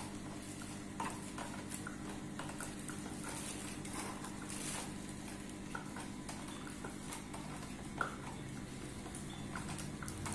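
Scattered light clicks and taps of a screwdriver and hard plastic parts being handled while a child's tricycle front basket is fitted, over a steady low hum.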